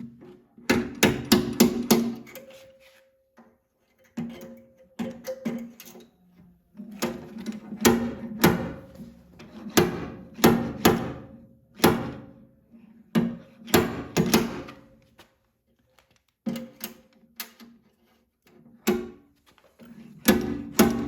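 Hammer blows on the dented steel body panel of a 1984 SAAB 900, in irregular runs of quick strikes with short pauses between, the sheet metal ringing after each blow as the dent is worked out.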